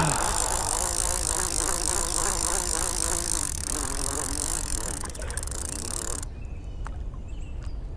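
A conventional fishing reel's spool spinning freely as line pays out on a cast, a fast wavering whirr with hiss. It stops suddenly about six seconds in, and a few light clicks follow.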